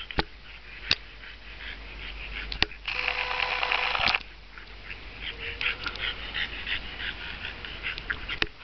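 Two English bulldogs play-fighting, growling and snorting. There is a loud, rough stretch of growling about three seconds in, lasting about a second, then a run of short grunts.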